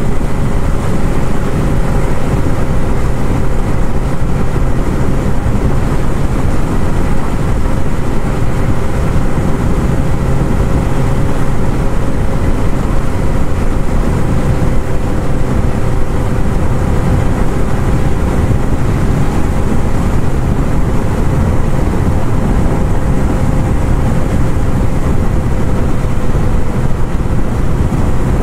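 1978 Kawasaki KZ1000's air-cooled inline-four running at a steady cruise, holding one even pitch, under a constant rush of wind and road noise.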